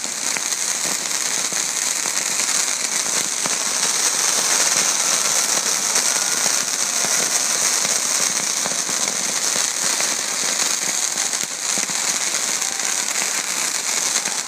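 Fireworks shooting crackling stars: a dense, steady crackle of many small pops with no single large bang.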